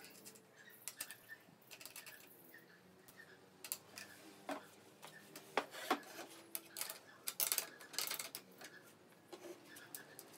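Light wooden knocks and clicks as a pine folding chair frame is handled, opened and stood on a workbench, coming irregularly with louder clusters around the middle.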